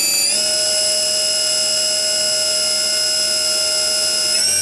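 SNK Prodigy GT-27 CNC lathe spindle spinning at high speed, a steady high whine that steps up in pitch twice, a little after the start and again near the end, as the spindle speed override is raised toward 5,200 rpm.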